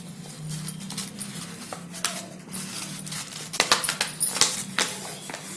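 Sheet of chart paper rustling and crackling as it is folded into thirds and creased by hand, with a denser run of sharp crackles from about three and a half seconds in.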